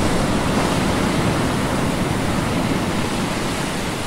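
Steady rushing water noise, like surf or a boat's wake, easing off near the end.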